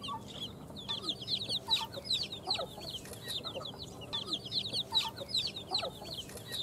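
Domestic chicks peeping: a dense, continuous stream of short, high-pitched, falling cheeps from several birds at once.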